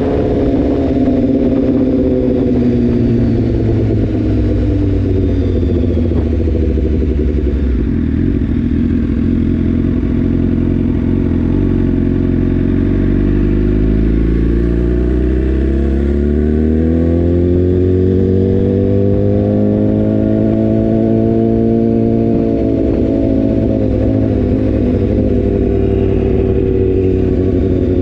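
2018 BMW S1000R's inline-four engine through a full Akrapovic exhaust, heard while riding. The revs fall off in the first few seconds and stay low for a while. About halfway in they rise steadily as the bike accelerates, then ease back off near the end.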